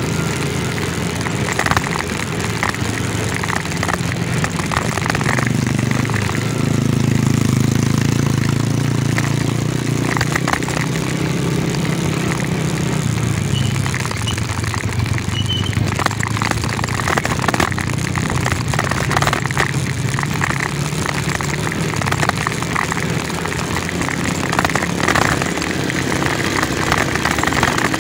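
Motorcycle engine running while riding a rough dirt trail, louder and a little higher in pitch for several seconds in the first half as it pulls harder. Frequent clatter and knocks from the bike jolting over the bumpy ground.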